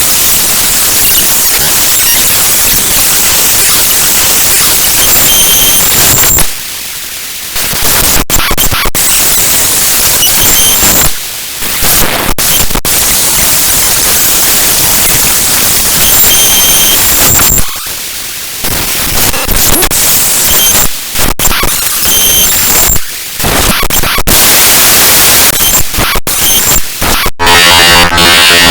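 Raw bytes of a disk image of a downloads folder played back as audio: a loud, harsh static-like hiss, strongest in the treble. It drops into quieter stretches of about a second four times and is broken by sharp momentary cut-outs.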